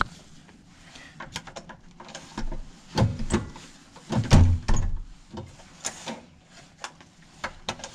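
Hotel room door with an electronic key-card lock being worked: a string of clicks and knocks from the card, lock and handle, with heavier thumps about three and about four and a half seconds in.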